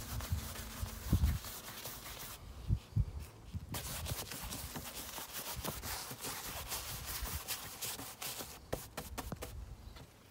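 Stiff paintbrush scrubbing and slapping thick gesso, gritty with Polyfilla dust, onto a canvas board in short, irregular strokes, with occasional low knocks.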